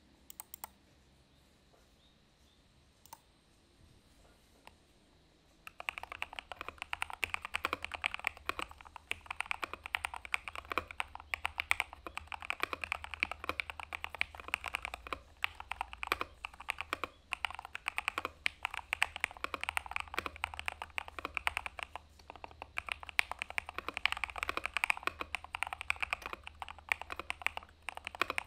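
Typing on a mechanical keyboard fitted with thick PBT dye-sub keycaps. A few isolated key clicks come first, then from about six seconds in there is fast, continuous typing, keystrokes following one another in quick succession.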